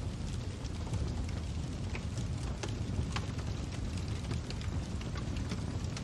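Fire crackling: a steady low rumble with scattered sharp pops and snaps, several a second.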